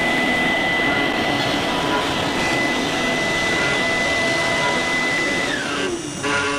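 CNC 3018 Pro router's spindle running with a steady high whine while the bit cuts into a wooden board, with a rougher cutting noise under it. About five and a half seconds in, the whine drops sharply in pitch.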